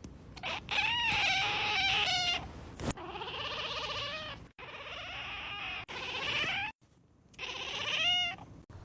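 High-pitched animal cries, about five in a row, each roughly a second long with a wavering, rising and falling pitch.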